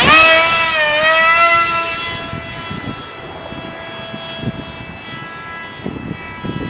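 Small RC electric jet's 2212 brushless motor and propeller whining at high throttle. It comes on suddenly, dips slightly in pitch about a second in, then holds a steady pitch as it grows fainter after about two seconds.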